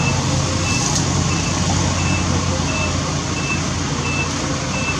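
A steady low hum with a short, high-pitched beep repeating roughly every three-quarters of a second.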